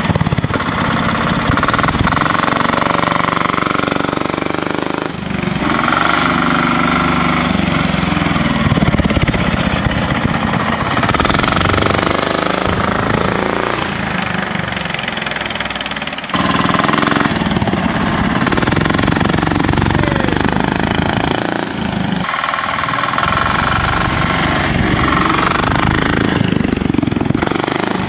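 Diesel engine of a modified Sears Suburban garden tractor clattering as it runs and winds out while being driven. The sound jumps abruptly a few times where separate clips are cut together.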